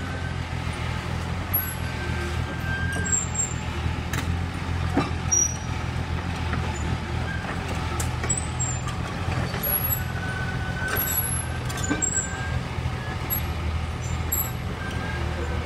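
Diesel engine of a Komatsu tracked excavator running steadily, a low even rumble with no revving, with a few sharp clicks and knocks over it.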